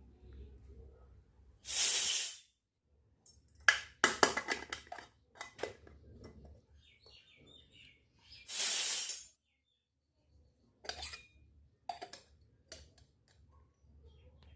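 Miniature steel toy kitchenware clinking and being set down: a quick run of ringing clinks, then a few lighter taps. Two short, loud hissing noises come about six seconds apart.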